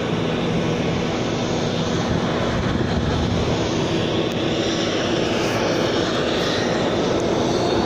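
Steady jet aircraft noise: a continuous rush with several steady humming tones underneath, unbroken throughout.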